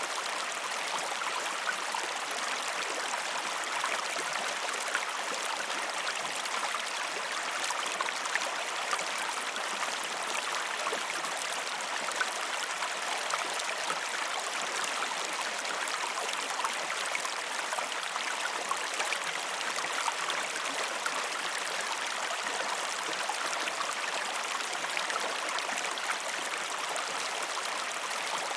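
Steady rush of flowing river and waterfall water, a continuous hiss flecked with fine splashing.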